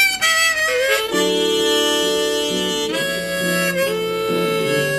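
Harmonica playing held notes and chords over acoustic guitar, with a bent note in the first second: an instrumental break after a sung verse of a live country song.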